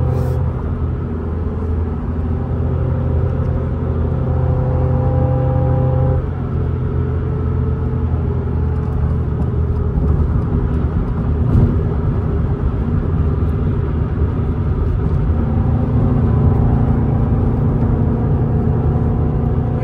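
Toyota GR86/Subaru BRZ flat-four boxer engine with Tomei unequal-length headers running while driving, heard from inside the cabin, with its uneven boxer rumble. The engine note eases about six seconds in and builds again past the three-quarter mark, with one short sharp sound about halfway through.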